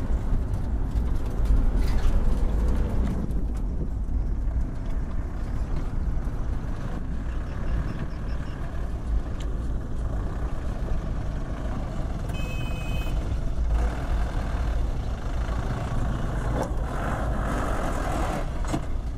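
Loaded light truck's engine running under load as it crawls and lurches through deep mud ruts, a low steady rumble. A brief high beep sounds about two-thirds of the way through.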